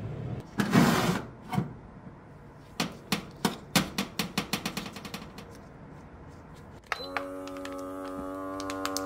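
A brief rush of noise, then a run of quick clicks that fade out. About seven seconds in, a vacuum sealer's pump starts with a click and runs with a steady hum as it draws the air out of the bag.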